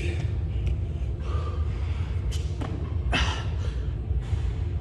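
A man's hard breathing and the thuds of his hands and feet landing as he does burpees. A few sharp sounds stand out against a steady low rumble.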